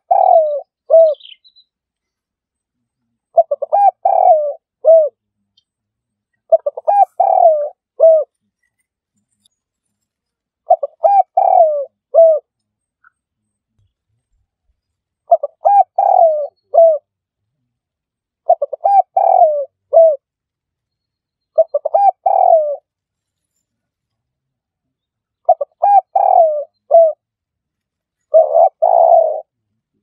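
Spotted dove cooing: a phrase of a few short coos and one longer falling coo, repeated about nine times at intervals of three to four seconds, with silence between phrases.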